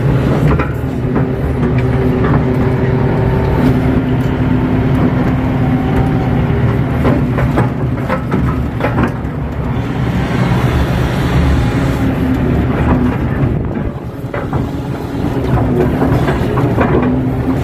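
KATO crawler excavator's diesel engine running under load, heard from the operator's cab, its note shifting as the hydraulics swing the boom and the bucket digs and dumps soil. A few knocks and scrapes from the bucket in the dirt.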